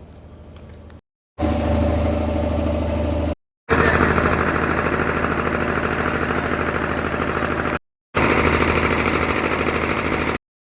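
Royal Enfield Meteor 350's single-cylinder engine running with a fast, even thudding beat, heard in loud stretches separated by abrupt cuts to silence.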